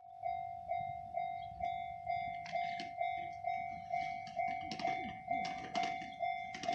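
Japanese railway level-crossing warning bell ringing its repeated ding-ding, about two strikes a second, each note dying away before the next. Irregular sharp clicks and knocks join in from about two and a half seconds in.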